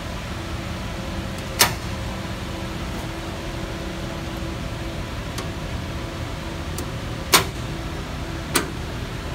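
Steady machinery hum, broken by sharp metal knocks from the steel door of a pump motor-starter cabinet being handled and shut: one about a second and a half in, then two close together near the end, the first of these the loudest.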